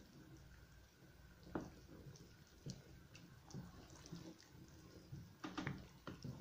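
Faint scattered clicks and knocks of a wooden spoon against an aluminium pot as boiling chicken soup is stirred, with a few knocks close together near the end.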